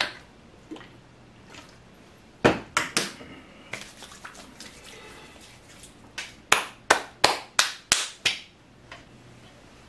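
Sharp hand claps: a few about two and a half seconds in, then a run of about eight at roughly three a second near the end.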